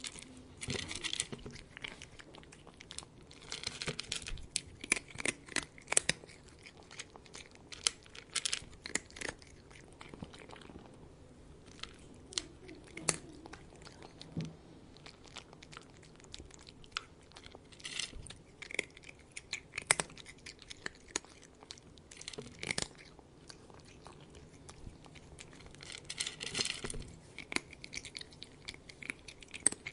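A cat eating, chewing and crunching its food in irregular bouts of crisp clicks, with short pauses between them.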